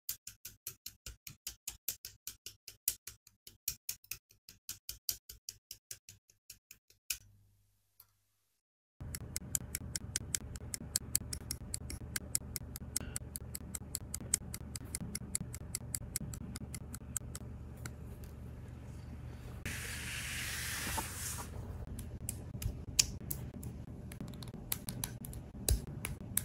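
Plastic model-kit parts being snipped off the sprue with side cutters and clicked together. First comes a fast, even run of sharp clicks for about seven seconds. Then, after a short gap, scattered clicks and snips sound over a steady low hum, with a brief hiss about twenty seconds in.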